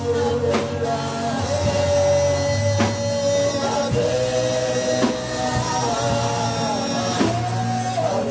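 Live gospel worship song: a woman and a man singing long held notes into microphones over a band, with drum-kit hits now and then.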